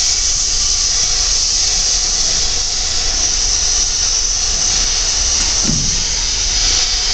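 Loud steady hiss over a low hum: the constant air and machinery noise of a ship's machinery space. No needle gun is hammering.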